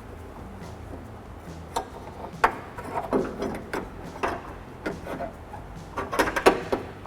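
Small clicks, taps and rubbing of plastic and metal parts being handled and fitted into a car's exterior door handle, with scattered single clicks and a quick cluster of several near the end.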